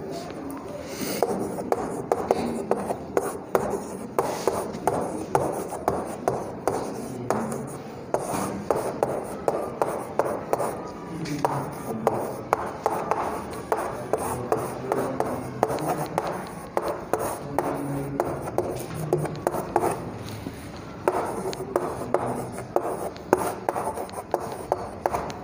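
Chalk writing on a chalkboard: quick, irregular taps and scratches of the chalk stick forming letters, with short pauses between words.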